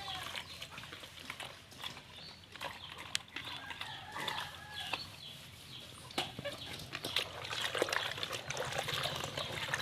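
Chickens clucking, with repeated short clicks and taps throughout that grow busier in the second half.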